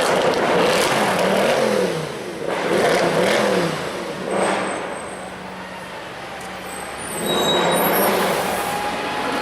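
Mercedes-AMG C63's V8 engine revving, its pitch rising and falling twice, then dropping to a quieter steady note before getting louder again near the end.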